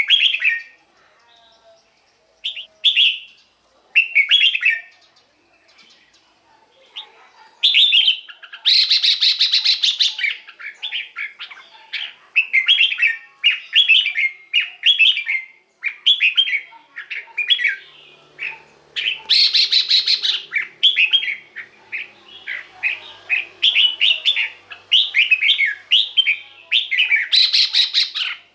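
Red-whiskered bulbul singing: short warbled phrases a few seconds apart at first, then a quick run of phrases from about eight seconds in. The run is broken three times by a harsh, rasping burst of a second or so.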